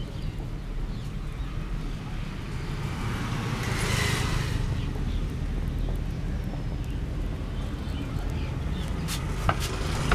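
Road traffic rumbling steadily, with a vehicle passing about four seconds in. A few sharp taps or clicks sound near the end.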